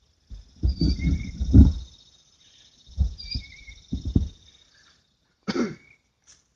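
Irregular low, muffled thumps and rustles of movement close to the microphone, in several clusters, while a bird chirps briefly a few times.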